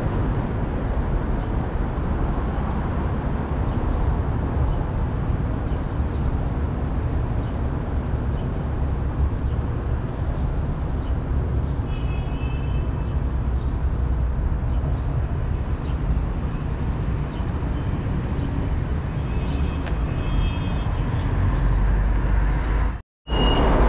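Steady low rumble of road traffic, with a few faint, brief high squeaks about halfway through and again near the end.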